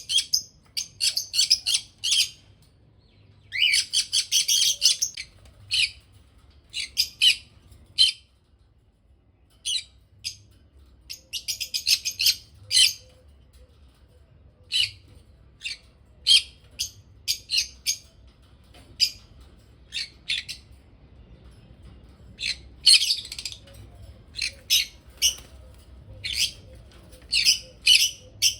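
Small pet parrots chirping and squawking in quick runs of sharp, high-pitched calls, with short quiet gaps between the runs.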